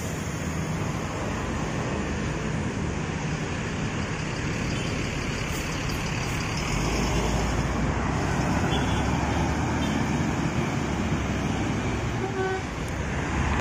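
Diesel engine of a high-deck coach bus pulling away past the camera, a steady low drone over road traffic that grows heavier about halfway through. A brief horn toot sounds near the end.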